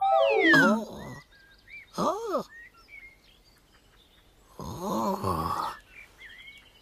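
A Teletubby character's voice making wordless sounds: a long falling 'whoo' at the start, a short rising-and-falling 'ooh' about two seconds in, and a wavering hum around five seconds in. Small birds chirp faintly in between.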